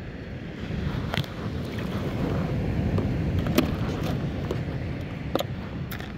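Steady wind rumbling on the microphone, with a few sharp clicks and knocks as a hand works in a cooler box of bait. The loudest knock comes about three and a half seconds in.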